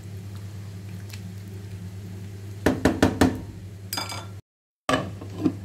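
Spatula stirring gravy in a cooking pot, then a quick cluster of sharp knocks and clinks of the utensil against the pot about three seconds in, with a short ringing clink just after.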